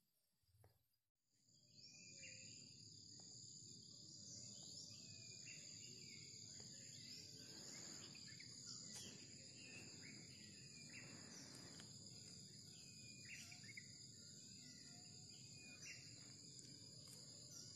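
Faint outdoor ambience: a steady high-pitched insect drone with scattered short chirps over a low hiss, starting about two seconds in.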